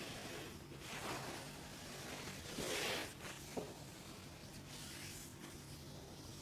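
Hands rubbing over a leg in a massage: soft swishing strokes, the loudest about three seconds in, with a small click a little after it.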